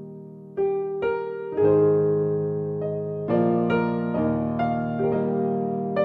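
Slow piano music: chords struck every second or so and left to ring out.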